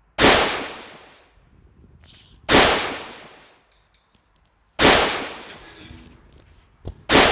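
Four sharp, loud bangs about two and a half seconds apart, each dying away over about a second.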